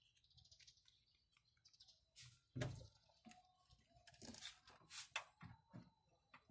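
Faint rubbing and clicking of a rubber dust cover being pressed onto the back of a car headlight housing, with one sharper knock about two and a half seconds in and a run of smaller clicks near the end.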